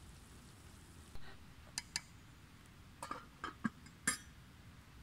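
Metal cookware clinking as it is handled at a campfire: a string of short sharp clinks and knocks of pot and lid, the last the loudest.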